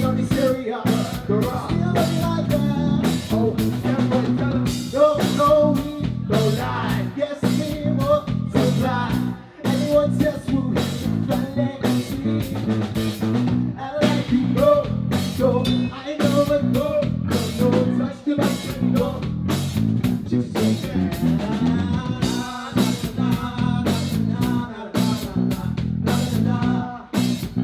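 Live band music with a steady drum beat and a melody over it.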